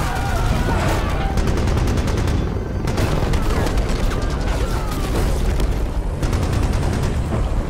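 Film sound of heavy automatic gunfire from an attack helicopter, with rounds exploding in rapid bursts against rocky ground over a constant low rumble.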